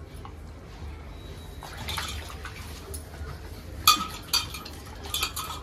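Water splashing in a steel bowl as fish pieces are washed by hand, with a few sharp clinks against the metal bowl, the loudest about four seconds in.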